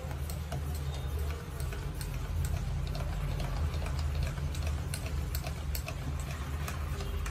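Small wire whisk stirring thin maida batter in a steel pot, its wires clicking lightly and irregularly against the metal, a few clicks a second, over a steady low hum. The batter is being whisked smooth after extra water was added.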